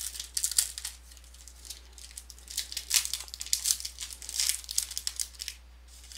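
Foil wrapper of a Panini National Silver trading-card pack being torn open and peeled back by hand: irregular crinkling and crackling, in a burst about half a second in and again, busier, from about two and a half to five and a half seconds.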